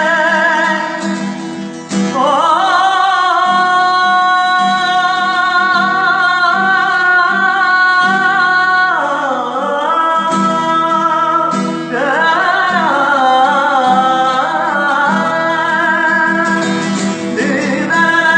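Folk-rock music: a steady rhythmic accompaniment under a wavering melody line that glides up and down, with no sung words.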